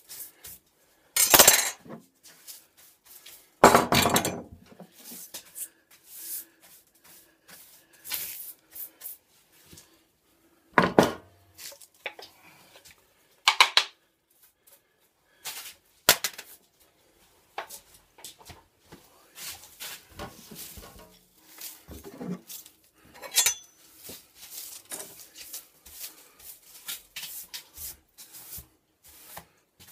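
Workbench handling noise: scattered knocks and metallic clinks as hand tools and pieces of wood are picked up and set down, with brushing sweeps across the bench top. The loudest clatters come in the first few seconds, the rest irregular and lighter.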